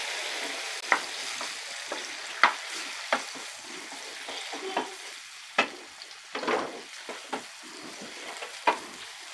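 Marinated chicken liver sizzling in hot oil in a nonstick frying pan, with a steady hiss, while a wooden spatula stirs it and now and then knocks and scrapes against the pan.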